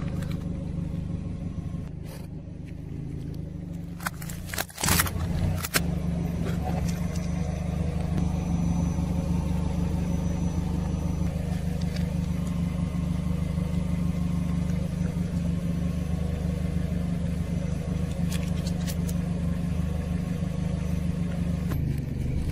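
A car engine idling steadily with a low, even hum, broken by a few sharp clicks about five seconds in.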